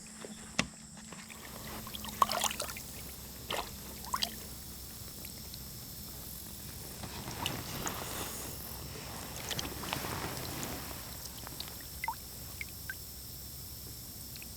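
Creek water sloshing and splashing around a wader's legs, with a few short sharp splashes or knocks in the first few seconds and softer swishes later on.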